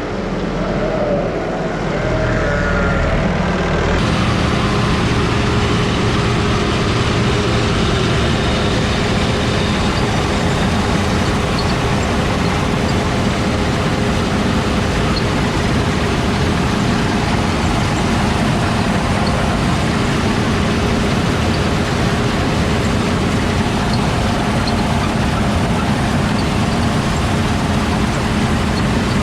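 Heavy farm machinery running steadily: a loud, continuous engine and mechanical din with a steady hum. It jumps louder about four seconds in.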